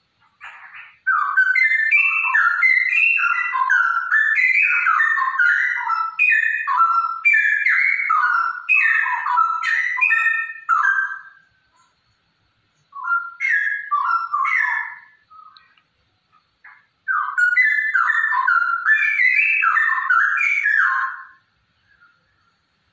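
Female straw-headed bulbul singing: loud, rapid phrases of clear whistled notes jumping up and down in pitch, in three bouts: a long one of about ten seconds, a short one, then another of about four seconds.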